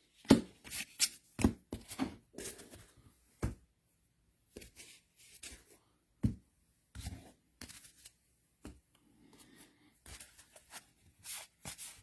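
Trading cards being handled and flipped through by hand, a string of short, irregular crisp flicks and taps.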